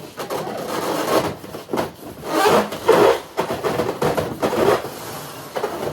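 Heavy objects scraping and rubbing across a floor as they are dragged, in uneven pushes, loudest about halfway through.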